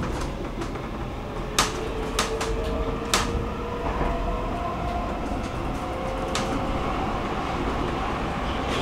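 Stockholm metro train running, heard from inside the car: a steady rumble with a faint whine, and a few sharp clicks and knocks in the first seconds and again about six seconds in.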